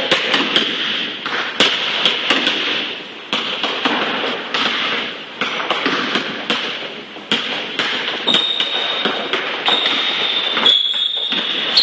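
Basketball dribbled on a hardwood gym floor: a run of irregular bounces, echoing in the large hall. High-pitched sneaker squeaks on the wood come in from about two-thirds of the way through.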